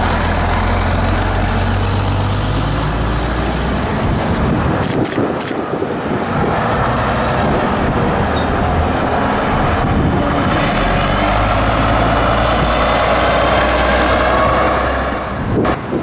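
Engines of heritage double-decker buses running as the buses drive past, one fading and another building up a few seconds in. There is a short hiss about seven seconds in, and the engine noise drops away near the end.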